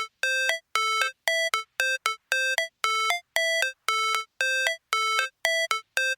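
Electronic music: a solo synthesizer line of short, bell-like notes, a couple to several a second with silences between them, without drums or bass.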